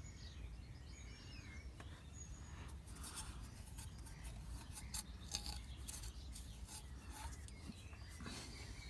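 Faint scratching and light clicks, clustered from about three seconds in, over a quiet outdoor background.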